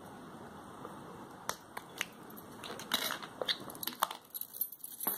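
Plastic car remote key fob shell being pried open: its snap clips give a few sharp clicks and cracks, spaced irregularly over several seconds.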